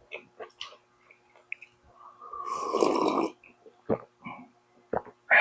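Close-miked eating sounds: short wet chewing clicks and smacks, with one longer noisy mouth sound lasting about a second near the middle.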